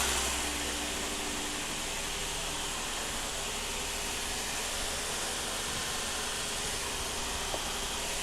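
Steady rushing hiss of workshop fans running, even and unbroken. A louder low hum fades down in the first half-second.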